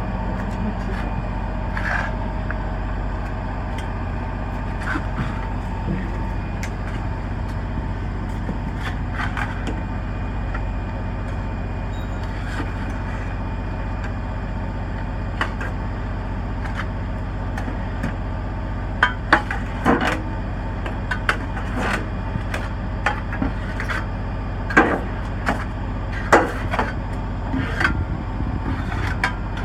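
Shovel scraping through soil and knocking against the metal hatch of a soil-vacuum collection tank, over a steady machine hum. The knocks come more often and louder in the second half.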